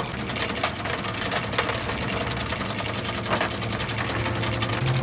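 Anchor chain running out from the windlass over the bow roller as the anchor is dropped: a fast, steady rattle of links.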